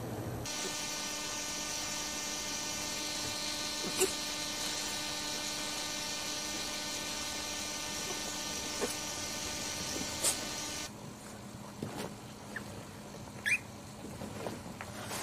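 A steady mechanical or electrical buzz with many even overtones, broken by a few soft clicks. It cuts off about eleven seconds in, leaving quieter rustling and one brief high squeak near the end.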